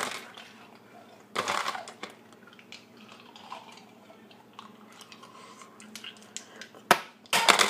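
Small clicks and clinks of dishes and utensils being handled, with a short rush of noise about a second and a half in, a sharp click about seven seconds in, and another short rush at the end.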